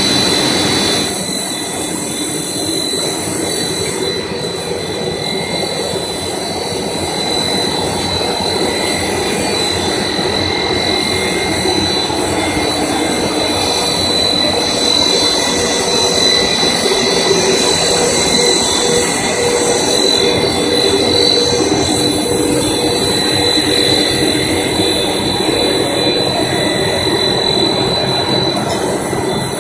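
HDPE geomembrane extrusion line running in the factory: a loud, steady machinery drone with several constant high-pitched whines over it.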